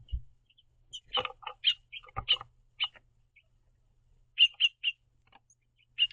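House finches giving short, separate chirps, with a quick run of three about two-thirds of the way through. A couple of light knocks come in between.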